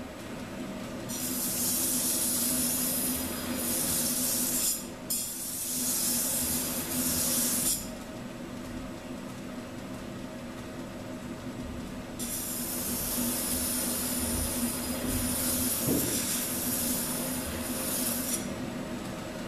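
Belt grinder running at low speed with a steady motor hum, while a hardened steel knife blade is pressed to its worn abrasive belt in three grinding passes, each a loud hiss, with a pause of several seconds after the second. This is light cleanup grinding to take the heat-treat scale off the blade down to bare steel.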